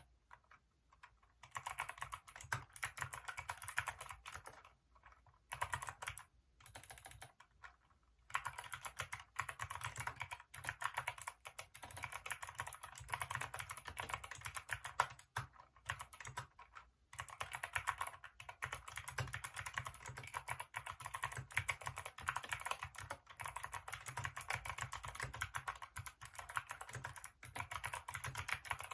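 Kailh optical-switch mechanical keyboard (Hacker K611) being typed on: fast, continuous keystroke clicks, broken by a few short pauses, the longest at the start.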